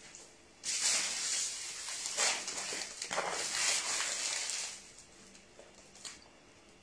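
Plastic shopping bag rustling and crinkling as it is handled, for about four seconds from just under a second in, then a single faint click near the end.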